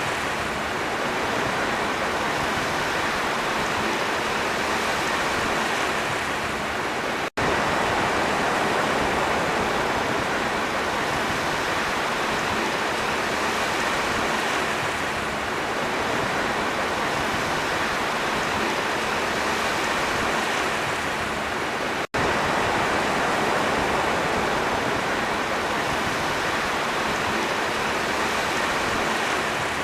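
Sea waves washing in a steady rush with gentle swells, cutting out for an instant twice, about seven and twenty-two seconds in, where the recording is spliced.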